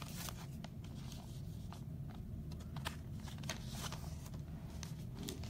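Faint scattered clicks and rustles of objects being handled over a steady low hum.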